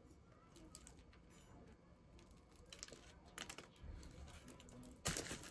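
Faint chewing and small mouth clicks of someone eating a sandwich close to the microphone, with a short louder rustle about five seconds in.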